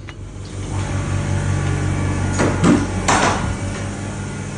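Wooden shipping-container door swung open with a clatter a little past halfway. The steady electrical hum of the machines running inside grows louder as it opens.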